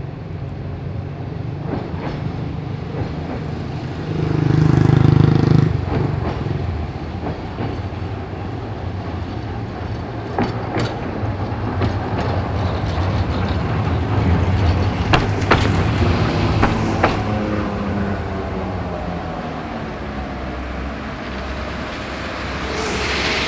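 A KTM-5 tram runs by with a steady low rumble and a few sharp clicks and knocks from its wheels on the rails. Cars hiss past on the wet road, one about five seconds in and another near the end.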